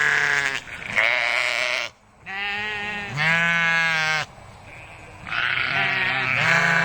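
Repeated bleating from a sheep or goat type of animal: five or six wavering calls, each about a second long, several of them in quick back-to-back pairs.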